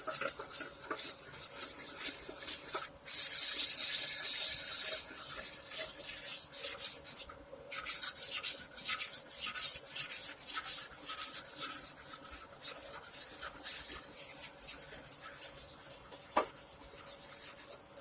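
Fret-levelling bar with fine abrasive rubbed back and forth along the frets of a Squier guitar neck in quick, even strokes, with a couple of brief pauses. There is no pressure beyond the bar's own weight: a light check pass that shows the high and low spots by where the marker comes off the frets.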